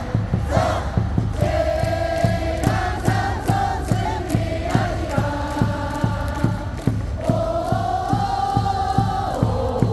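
A large stadium crowd of baseball fans singing a cheer song in unison, with a steady beat about three times a second under the singing.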